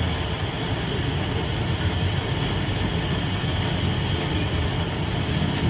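Steady low mechanical rumble, like a running engine or machine.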